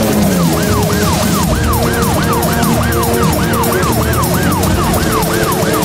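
Ambulance siren on a GAZ-32214 GAZelle ambulance, yelping fast. Its pitch rises and falls about three times a second, starting just under a second in.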